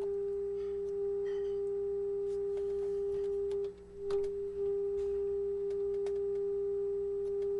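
Steady single-pitch alignment test tone from the RCA 66X1 radio's loudspeaker, the modulation of a 9.5 MHz test signal being received during RF alignment. The tone fades out briefly about halfway through and comes back as the tuning is adjusted.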